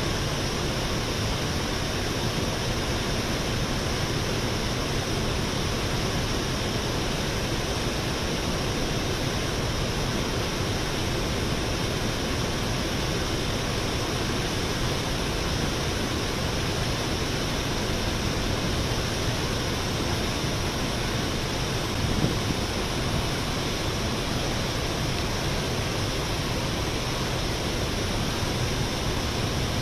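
Water pouring over a dam spillway, a steady rushing noise with one small brief swell about twenty-two seconds in.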